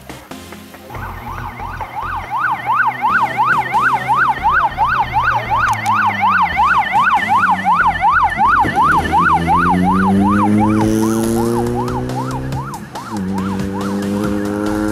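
Electronic siren yelping quickly up and down, about three cycles a second, fading out about ten seconds in. Over its last part a car engine revs up, its pitch climbing, drops suddenly near the end as at a gear change, and climbs again.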